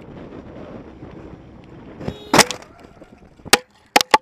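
Road and wind noise while riding in traffic, then a loud crash impact about two seconds in. A sharp knock follows about a second later, and two quick knocks come near the end as the camera tumbles.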